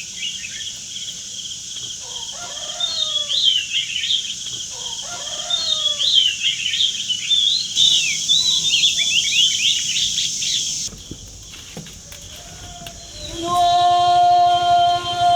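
Small birds chirping and twittering over a steady high insect buzz. Near the end, a steady pitched tone holds for about two seconds and then drops away.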